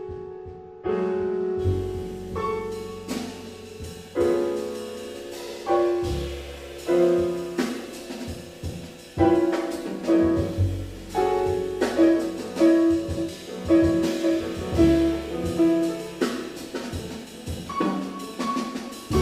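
Live acoustic jazz: piano playing chords and lines over upright bass and a drum kit, after a brief lull in the first second.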